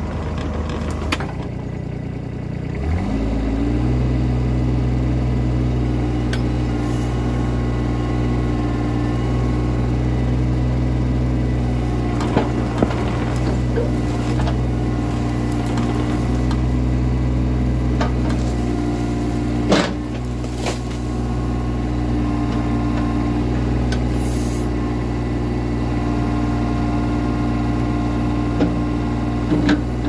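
Mini excavator's diesel engine revving up about three seconds in, then running steadily at high throttle while the arm raises the bucket, with a few sharp knocks.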